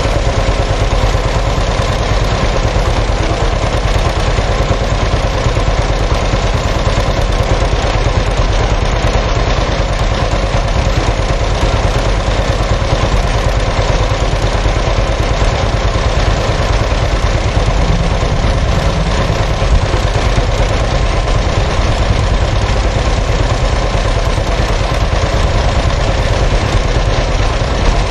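Machinery running steadily with a constant hum, unchanging throughout.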